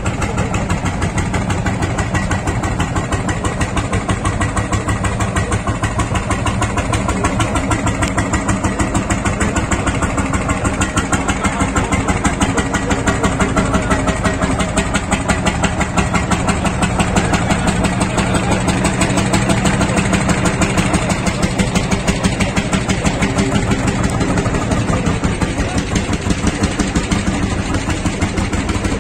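Vintage hot-bulb tractor engines running with a steady, evenly pulsed chug. These are single-cylinder two-stroke engines.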